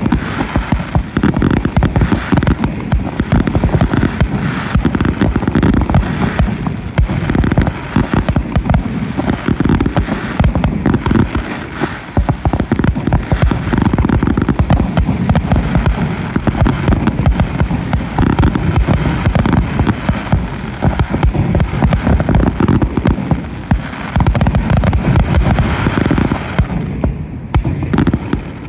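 Fireworks display: a dense, unbroken barrage of shell bursts, many bangs a second overlapping one another. The barrage thins slightly near the end.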